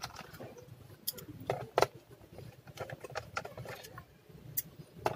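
Scattered small clicks and taps of a screwdriver and loose screws against an Acer 4710-series laptop's plastic bottom case. The sharpest clicks come between about one and two seconds in.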